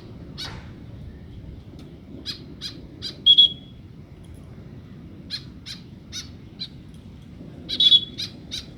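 White-breasted woodswallow giving short, harsh calls in three quick bouts of several notes, about three a second. A brief held high note in the first and last bouts is the loudest.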